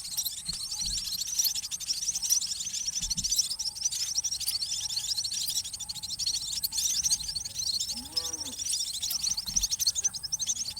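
Small emprit birds chirping rapidly and continuously in a dense chatter of overlapping high calls, as when chicks beg while being fed.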